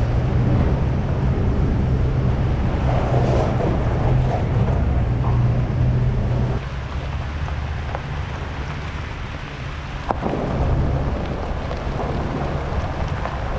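Cycling noise: wind rushing over the microphone with a heavy, uneven low rumble. It drops a little about halfway through.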